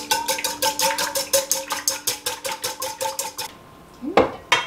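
Metal wire whisk beating eggs in an enamelware mixing bowl: a fast, even run of clinking strokes, about seven a second, that stops about three and a half seconds in. Two sharp knocks follow near the end.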